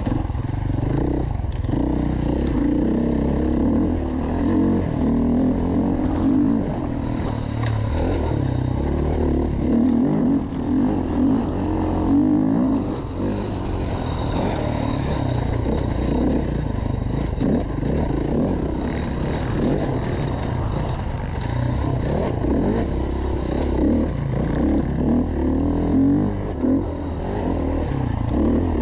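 Enduro dirt bike engine revving up and down continuously as it is ridden hard over off-road terrain, the pitch and loudness rising and falling with the throttle.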